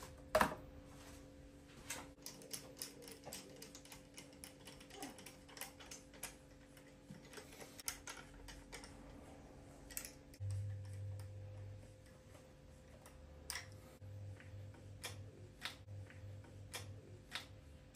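Light, irregular metallic clicks and ticks as washers and nuts are fitted onto the ARP head studs of a BMW S38B36 cylinder head and run down by hand, with a sharper click about half a second in. A brief low hum comes in about ten seconds in.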